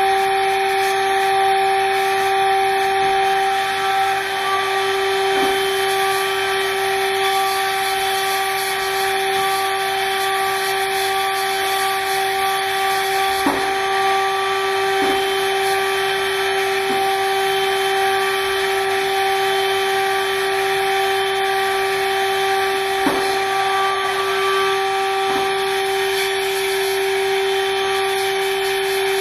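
High-speed machining spindle on a parallel-kinematic robot running with a steady whine and a hiss, as the robot moves the tool through a machining task. A few brief, faint knocks come through now and then.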